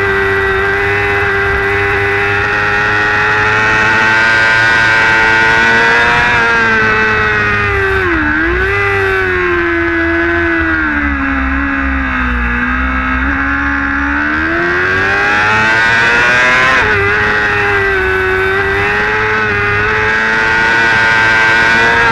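High-revving sportbike engine on a racing motorcycle, heard onboard with wind rushing past. The revs fall as the rider comes off the throttle into a corner, with a quick gear change about eight seconds in. They stay low through the slow part of the turn, then rise under full throttle from about fourteen seconds, dropping sharply at an upshift near seventeen seconds before climbing again.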